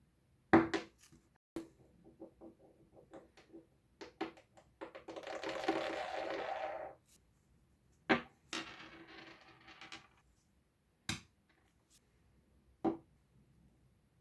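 A small hard object being handled at a work surface: a series of sharp knocks and quick clicks, with about two seconds of steady rubbing or scraping in the middle and a shorter, fainter stretch after it.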